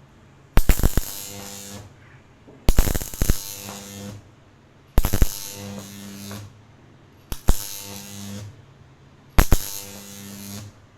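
High-voltage arc from microwave oven transformers wired in series, switched on five times at roughly two-second intervals: each time a sharp crack as the arc strikes, then about a second of loud electrical buzzing before it cuts off.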